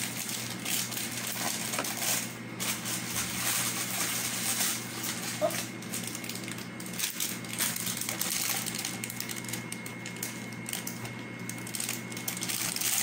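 Plastic bag of cake mix crinkling and crackling as it is squeezed and pulled at to get it open, with irregular clicks throughout. A steady low hum runs underneath.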